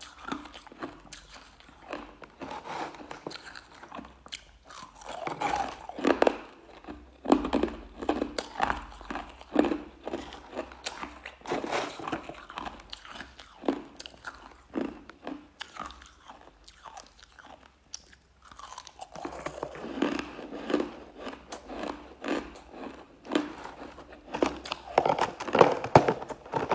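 Crushed ice being bitten and chewed: dense runs of sharp crunches with short pauses between them.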